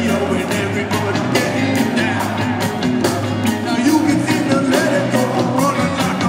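Live reggae band playing: drums keeping a steady beat under bass, guitar and keyboards, with the lead singer's voice over them.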